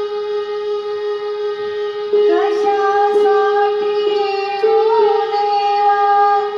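An electronic keyboard holds a steady, harmonium-like note; about two seconds in, a woman starts singing a Marathi bhajan over it, and tabla strokes and small hand cymbals (taal) come in with her.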